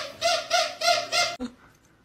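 A dog chomping on a plush squeaky toy, the squeaker squeaking in quick repeated pulses about three times a second, cut off abruptly about one and a half seconds in.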